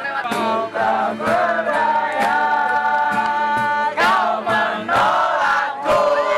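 A group of voices singing together, several voices holding long notes at once.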